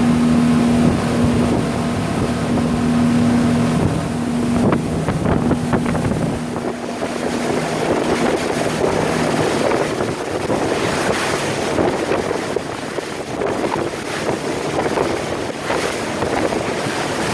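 Motorboat under way: a steady engine hum for about the first half, with wind buffeting the microphone and water rushing past, which take over in the second half.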